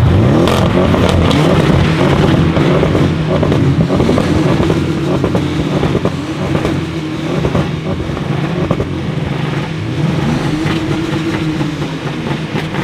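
A sports car engine revved hard through a loud aftermarket exhaust, its pitch climbing and falling about four times, with a few sharp cracks in between.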